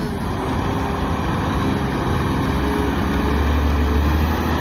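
Caterpillar 980M wheel loader's diesel engine running with a steady low drone.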